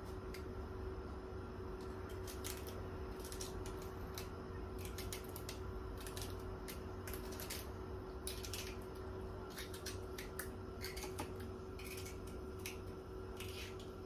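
A kitchen knife slicing a vegetable on a cutting board: irregular, quick strokes, each a short knock against the board, over a steady low hum.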